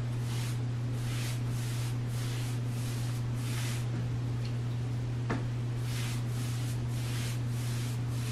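Chip brush swishing a watery white paint mix onto sanded bare wood in quick strokes, about two a second, with a pause in the middle and one light tap about five seconds in. A steady low hum runs underneath.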